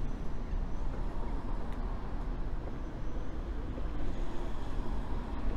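Steady low rumble of outdoor street ambience in a town square, with traffic noise.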